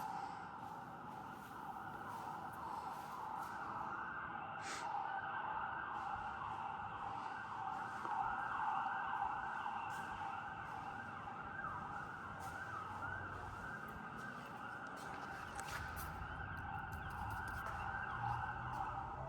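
An emergency vehicle's siren in yelp mode, its pitch sweeping rapidly up and down without a break.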